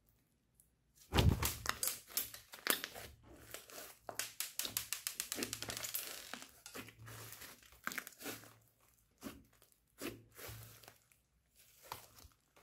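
Thick clay-mixed slime being squeezed and stretched by hand, giving a dense run of small sticky clicks and pops that starts suddenly about a second in. After about eight seconds the pops thin out to scattered bursts.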